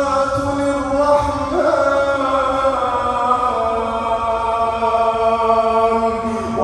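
Male Quran reciter chanting in slow, melodic tajweed style, drawing out long held notes that glide from one pitch to the next.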